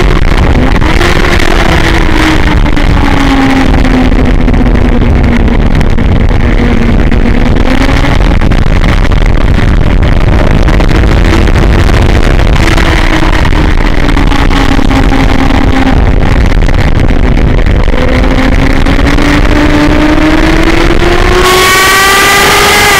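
Onboard sound of a motorcycle at track speed: the engine note falls and rises several times through the corners under heavy wind noise on the microphone. In the last few seconds the engine pitch climbs steadily and the sound gets brighter as the bike accelerates hard.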